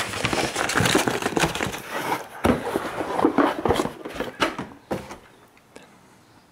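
Cardboard box and paper packaging being handled and rummaged through: rustling and crinkling with scattered knocks, dying down about five seconds in.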